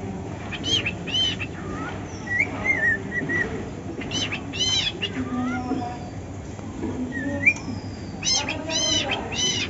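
Cockatiel making short chirps and warbling whistled calls, some rising and falling in arches, coming in small clusters with gaps between.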